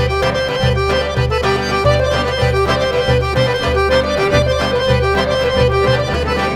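Background music: a traditional Turkish-style instrumental piece with a busy melody over a steady, pulsing bass beat.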